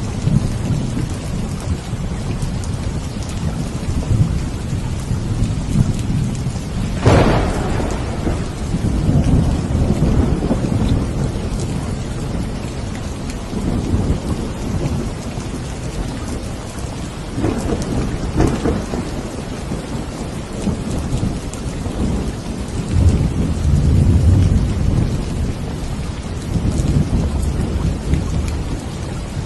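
Steady rain with thunder: a sharp crack about seven seconds in, another around eighteen seconds, and low rumbles swelling in between.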